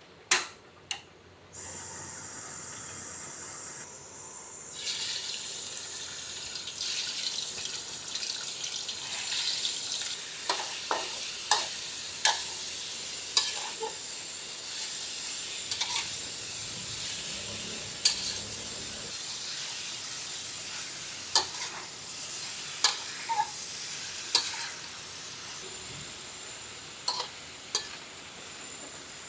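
Pieces of meat sizzling in oil in a wok over a gas burner while a metal spatula scrapes and knocks against the wok, stir-frying them. It opens with two sharp clicks and a steady hiss, and the sizzling grows louder about five seconds in.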